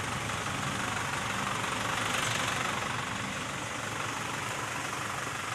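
A vehicle engine idling steadily, with a slight swell about two seconds in.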